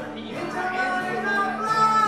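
A man singing while strumming an acoustic guitar, live; his voice moves between notes and holds a long note near the end.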